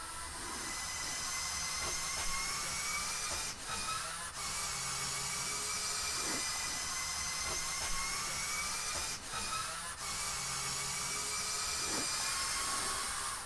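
Electric motors and gearing of a LEGO Technic 42129 Mercedes-Benz Zetros trial truck whining steadily as the remote-controlled truck crawls along. The pitch creeps up slowly, and the whine stops briefly twice when the drive is let off.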